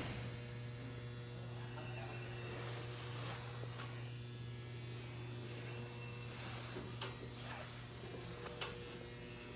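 Steady low electrical hum, with a couple of light clicks near the end.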